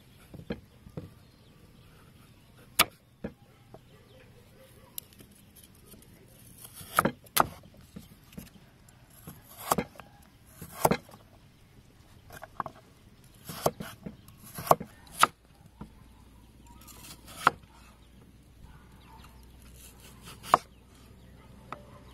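Kitchen knife chopping a carrot, then a potato, on a wooden chopping block: irregular sharp knocks of the blade striking the wood, often two or three close together with pauses between.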